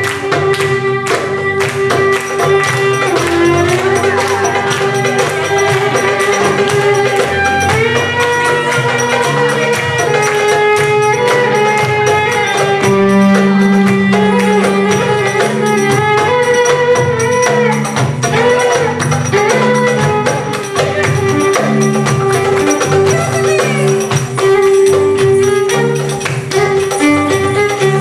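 Live belly-dance band music: a violin playing a melody over percussion with a tambourine.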